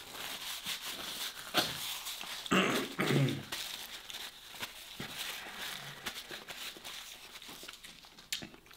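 Paper tissue rustling as it is wiped over the face and crumpled in the hands, with a few short wordless vocal sounds about three seconds in.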